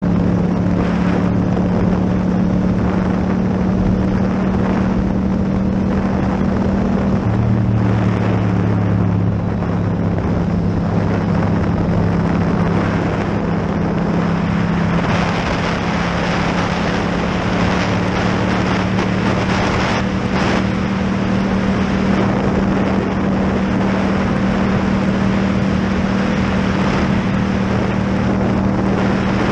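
Yamaha MT-07's parallel-twin engine with an Akrapovic exhaust running steadily under way, with wind noise on the microphone. The engine note changes briefly about seven seconds in.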